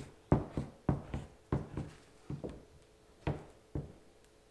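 A mallet head knocking and tapping against a kayak hull as it presses the edges of a keel-guard patch down: about eleven uneven knocks, close together at first and spacing out near the end.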